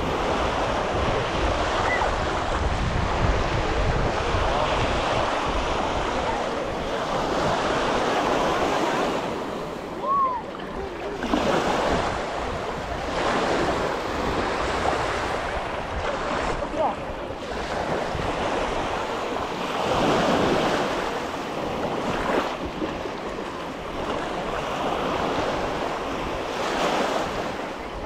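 Ocean surf washing onto a sandy beach, a steady rushing that swells and eases every few seconds, with wind rumbling on the microphone.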